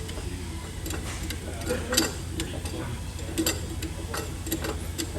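Irregular light metallic clicks and clinks, a dozen or so, over a steady low hum.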